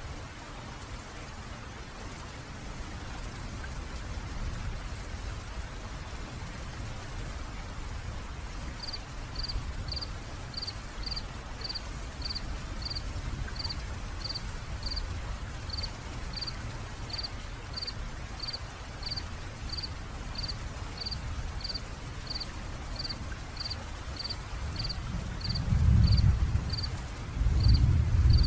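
Steady rain falling, with a deep rumble of thunder twice near the end. From about a third of the way in, a short high tick repeats evenly about every two-thirds of a second.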